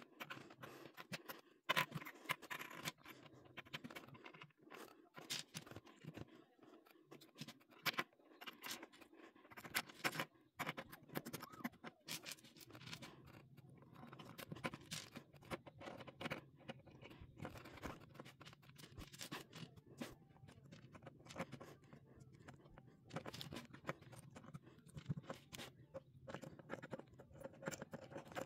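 LEGO bricks being handled and pressed together: irregular small plastic clicks, taps and scrapes against a tabletop.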